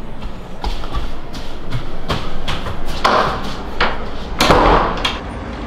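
A run of knocks and thuds, irregularly spaced, with two loud bangs that ring on in the room about three seconds and four and a half seconds in.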